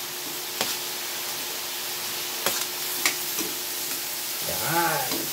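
Garlic and chopped onions sizzling in hot oil in a metal wok, with a few sharp clicks of a metal spoon against the pan as the onions are tipped in and stirred.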